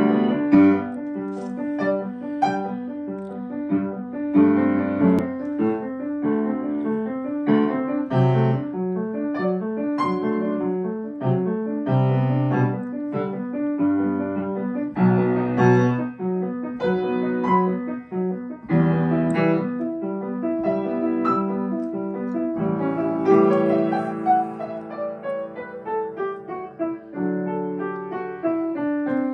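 Grand piano played solo: a continuous flow of melody and chords, with deep bass notes struck now and then.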